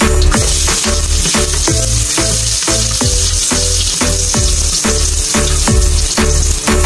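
Garlic and ginger sizzling in hot oil in a wok, stirred with a wooden spatula. Background music with a steady beat and deep bass plays underneath.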